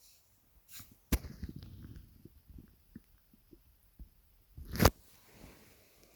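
Upset stomach gurgling: a sharp click about a second in, then a run of small irregular low gurgles and pops, and later one short, loud burst that is the loudest sound.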